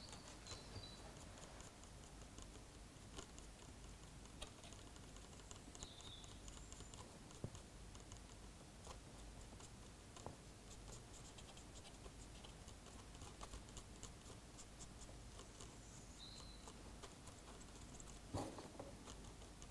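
Near silence with faint scratching and scattered small ticks: a cotton bud rubbing oil paint off a model locomotive's body.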